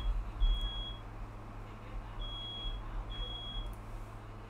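Smoke alarm beeping a high, steady tone in groups of half-second beeps with pauses between, set off by smoke from fireworks, with a low thump about half a second in.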